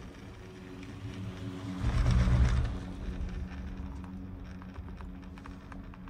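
Gondola lift cabin travelling along the cable: a steady low hum with a few faint steady tones, and a brief louder low rush about two seconds in.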